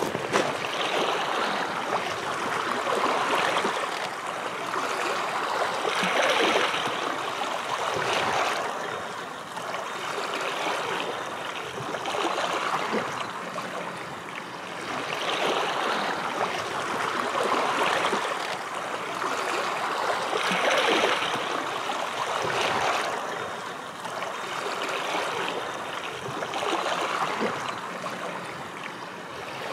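Sea surf washing over a rocky shore: a continuous rushing that swells and falls back every two to three seconds.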